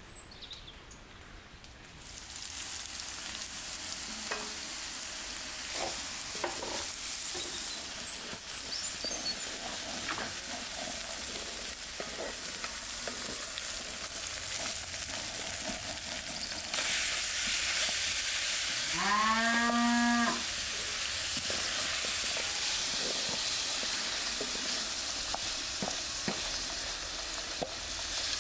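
Food sizzling in an oiled wok as it is stirred with a spoon, with the sizzle growing louder about two thirds of the way through. Near the middle of that louder part a cow moos once, a rising call of about a second and a half.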